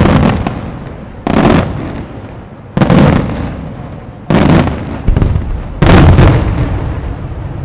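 Aerial firework shells bursting in quick succession: six loud booms about one to one and a half seconds apart, each fading out after the bang.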